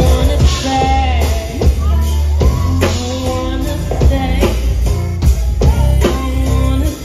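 Live band with a female singer, electric guitar, bass and drum kit performing a song, recorded loudly from the audience with a heavy, booming low end.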